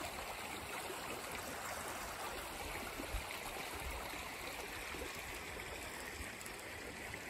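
Small woodland stream bubbling steadily over its bed.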